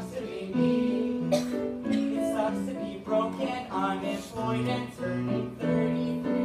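Piano accompaniment playing a show tune, with voices singing along.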